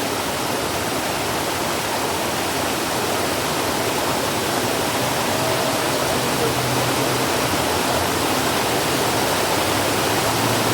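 Rushing water of Dunn's River Falls cascading over rocks, a steady, even hiss.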